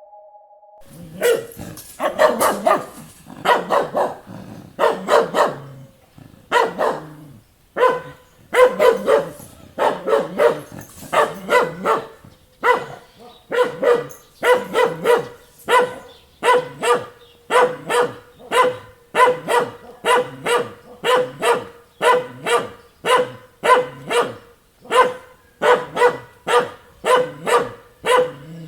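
A dog barking over and over in a long run of short barks. They start about a second in and settle into a steady rhythm of roughly two barks a second.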